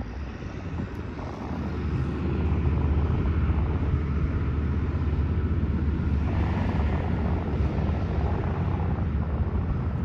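A low, steady engine drone that builds over the first two seconds or so and then holds.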